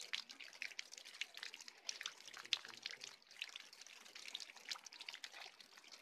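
Light rain falling, with many small irregular drops ticking onto puddles and wet ground.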